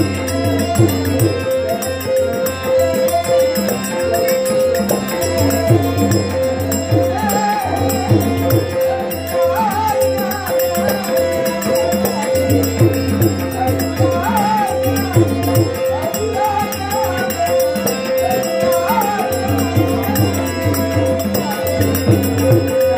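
Dashavatari thumri played live: a harmonium holding a steady drone under a man's singing, tabla with deep bass strokes in a repeating rhythm, and small jhanj hand cymbals keeping time.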